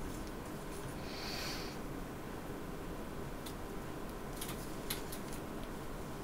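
Quiet room with a steady low hum, and faint handling sounds over it: a short soft hiss about a second in and a few light clicks later on.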